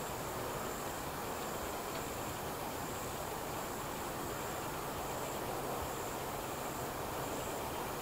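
Insects chirping high and shrill in even pulses, a little more than one a second, over a steady low background rumble.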